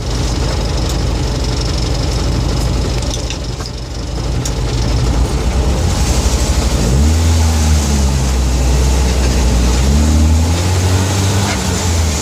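UAZ 469 running, its engine and drivetrain carrying an odd noise from the front end that the owner fears may be expensive. About seven seconds in a deep drone sets in, with a tone that rises and falls twice.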